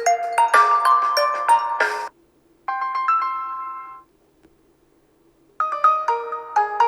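OnePlus Nord N10 5G ringtones playing. A quick melody of bright notes stops about two seconds in, a short chord follows and dies away, and after a pause of about a second and a half another melody begins near the end.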